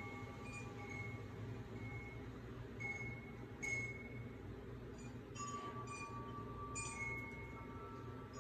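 Wind chimes ringing in a slow, irregular scatter of clear notes, some held and fading for a second or more, over a low steady hum.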